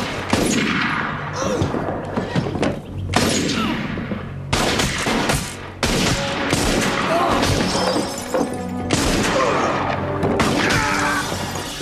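A series of revolver shots in a film gunfight, mixed with crashes of breaking glass, over background film music.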